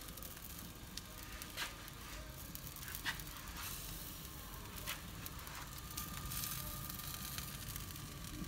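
Meat on a wood-fired rotisserie spit sizzling steadily over glowing embers, with a few sharp pops and crackles.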